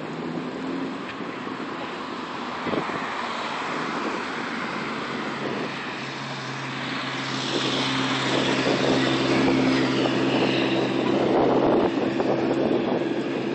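Wind noise on the microphone of a moving bicycle, with a steady engine hum that comes in about halfway through and grows louder.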